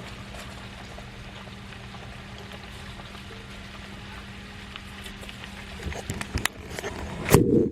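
Pasta water boiling and vegetables sautéing on a stovetop: a steady hiss with a low hum under it. Toward the end come a few clicks of utensils and one loud knock.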